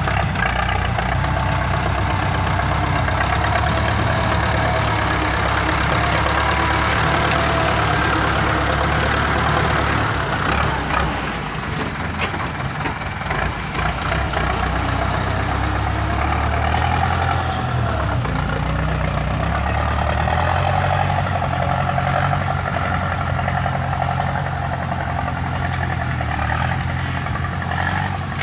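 A vehicle engine running steadily, with its note shifting a few times and the level dipping briefly about ten seconds in.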